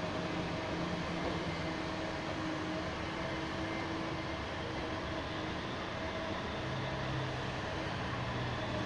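Diesel engine of a CAT 6020B hydraulic mining excavator running steadily as the machine works, swinging its bucket over a haul truck; a deeper hum joins about seven seconds in.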